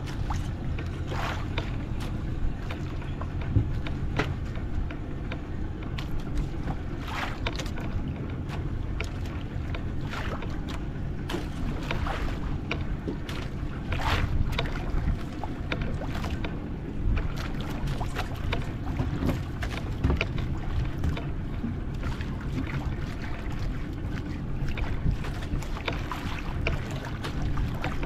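Fishing boat at sea: a steady low rumble with wind buffeting the microphone, and scattered short knocks and splashes.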